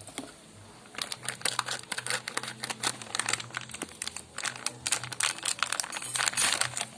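Packaging crinkling and rustling as it is handled and unwrapped, in dense irregular crackles starting about a second in.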